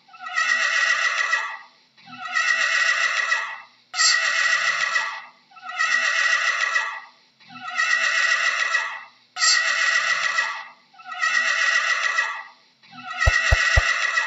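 Horse whinnying, the same falling neigh repeated eight times about every two seconds. A few sharp clicks come near the end.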